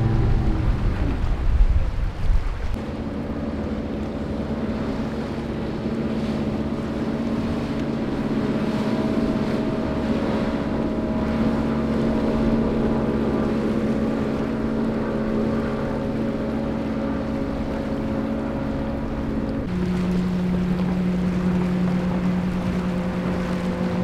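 Outboard motors of passing powerboats running at speed, a steady engine drone. The engine note changes abruptly about 3 s in and again near the end as one boat gives way to another.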